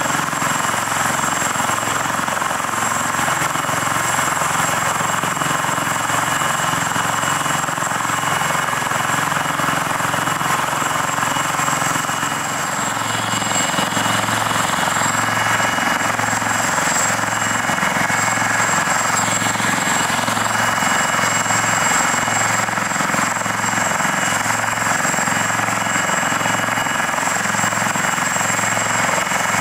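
AgustaWestland AW159 Wildcat helicopter running on the ground with its rotors turning during a rotors-running refuel: a steady high turbine whine over a regular rotor beat. The beat becomes more distinct about halfway through.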